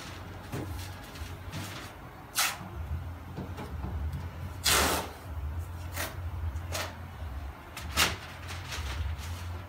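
Masking tape pulled off the roll in short rips, five times, the longest and loudest about five seconds in, with newspaper rustling between them; a steady low hum runs underneath.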